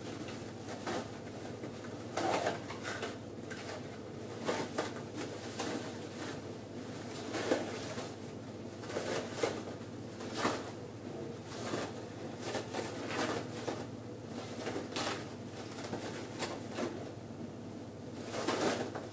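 Irregular knocks and clinks of a stainless-steel dish-rack frame being handled and fitted into place, over a steady background hum.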